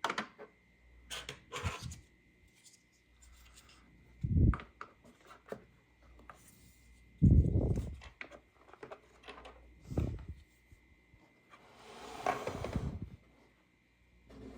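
Hands handling a plastic toy playset and its packaging: scattered clicks, a few dull knocks, and a rustle about twelve seconds in.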